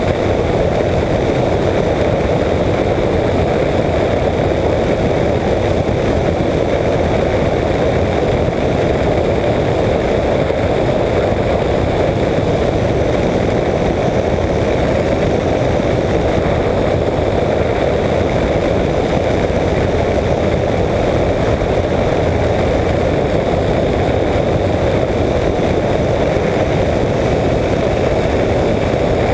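Apollo Jet Star microlight trike's engine and pusher propeller running steadily in level cruise, heard from a wing-mounted camera in the rushing airflow.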